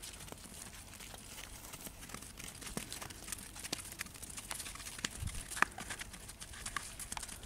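Animals walking on a frozen pond: scattered light clicks and taps of feet on ice and crusted snow, over a faint steady hiss. There is a dull thump about five seconds in and a sharp click just after it.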